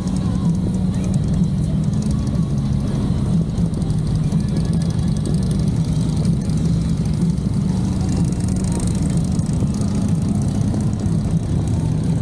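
Motorcycle engines running steadily, a continuous low drone.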